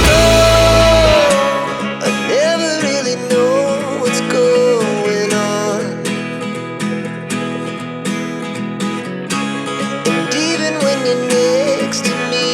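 Background music: a song with a gliding lead melody over plucked or strummed guitar and a steady beat, its heavy bass dropping out about a second in.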